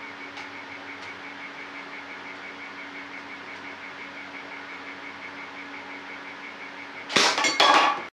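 Nerf Recon blaster being primed and fired: a sudden burst of sharp plastic clacks in two quick clusters about seven seconds in, lasting about a second. Before it, a steady low hum with a faint rapid ticking.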